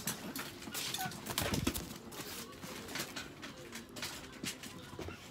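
Chihuahuas whimpering in their crates, mixed with rustling and knocks from a person moving and kneeling close by, loudest about one and a half seconds in.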